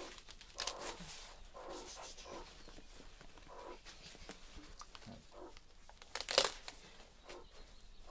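Leaves rustling and tearing as they are handled, in an irregular run of crinkles and small cracks, with one sharp crackle about six seconds in.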